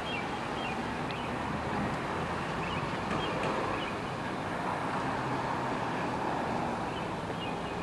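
Steady street noise of road traffic, with some wind on the microphone.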